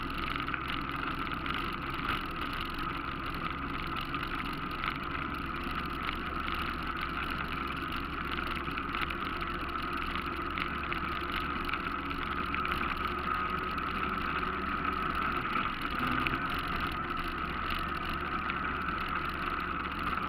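ATV engine running steadily while the machine drives along a trail.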